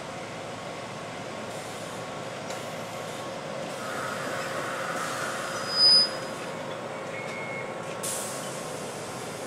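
Former Keihan electric train running slowly along the station platform, with a steady hum. About six seconds in comes a brief, loud, high-pitched squeal, and a short hiss follows near the end.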